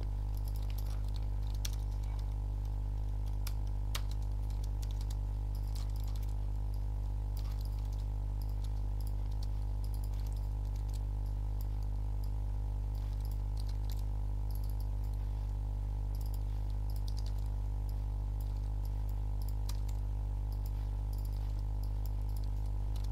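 Computer keyboard typing, short runs of key clicks, over a steady low hum.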